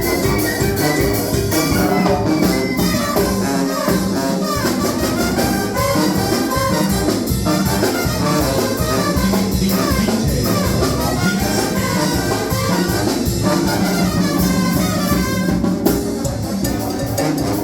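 Latin dance music played by a band, with brass and a steady drum beat.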